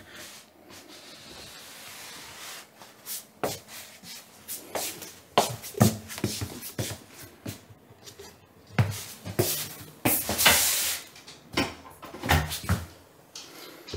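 Irregular knocks, taps and rustling, with a louder rustle about ten seconds in.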